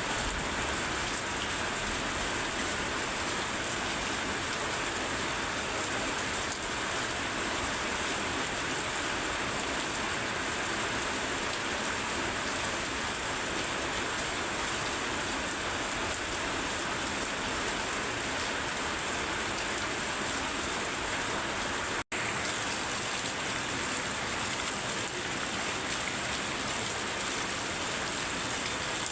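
Very heavy rain falling steadily, an even continuous hiss of water, with a split-second cut-out about three-quarters of the way through.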